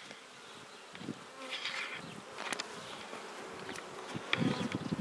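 Honeybees buzzing around their hive, steady and faint, with a few light knocks and clicks as the hive is handled.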